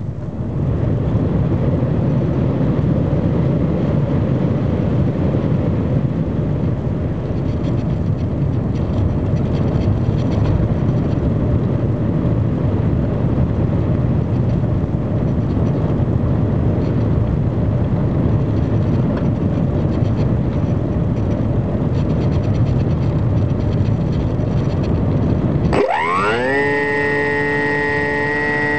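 Air rushing over a model airplane and its onboard camera as it glides with its motor throttled back. About 26 seconds in, the model's motor spins up again with a quickly rising whine, then runs at a steady pitch.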